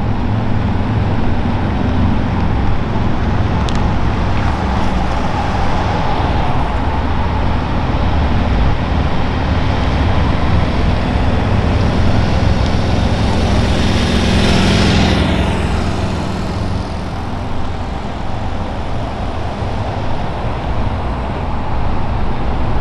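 Motorcade traffic of police SUVs and police motorcycles driving past on a city road: steady engine and tyre noise, with one vehicle swelling and whooshing past close by about fourteen seconds in, then the traffic noise eases slightly.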